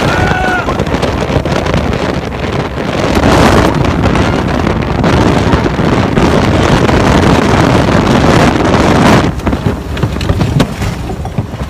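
Tornado wind blasting over the microphone: a dense, loud rush of air that builds about three seconds in and eases shortly before the end.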